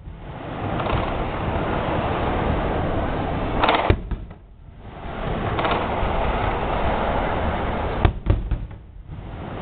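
Aerial fireworks shells bursting: two sharp booms about four seconds apart, the first a little under four seconds in, with a steady rushing noise between them.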